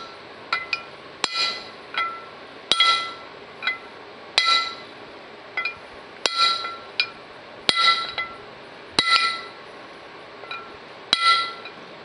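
Hammer striking a copper punch to drive a new bushing into the center drive pulley of a John Deere 4400 combine. About a dozen irregularly spaced blows, some light and some heavier, each with a short metallic ring.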